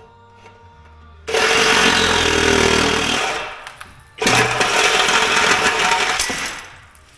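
Cordless reciprocating saw cutting through the steel exhaust pipe in two loud bursts, each about two seconds long, with a short pause between.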